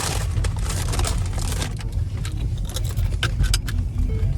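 Low rumble of a car heard from inside the cabin. Over it, rustling and crackling for the first second and a half, then scattered clicks.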